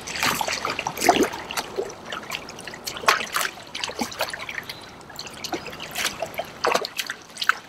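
Water trickling and splashing in small irregular bursts beside a kayak as a hooked smallmouth bass is played up to the boat.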